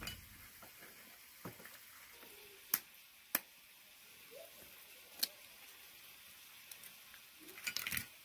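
Eggs being cracked open on a china plate: a few sharp taps of shell on the rim, a second or two apart, then a quick run of crackling shell near the end as the shells are pulled apart and dropped into a bowl.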